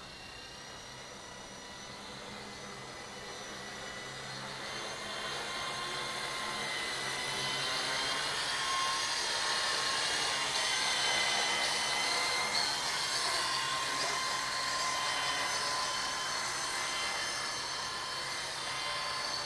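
Wltoys V912 fixed-pitch radio-controlled helicopter in flight: its brushless main-rotor motor and spinning rotor give a steady whine that wavers a little in pitch and grows louder over the first ten seconds or so as the helicopter comes nearer.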